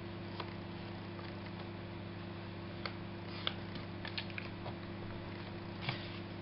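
Faint taps and light scuffs of a foam ink blending tool dabbed and rubbed along the edges of a card pocket, over a steady low hum.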